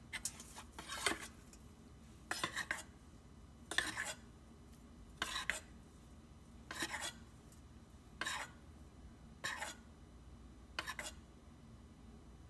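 Metal spoon scraping and clinking against the metal pot of an electric chocolate melting pot as melted chocolate is scooped and spooned over a frozen banana, about nine strokes roughly every second and a half.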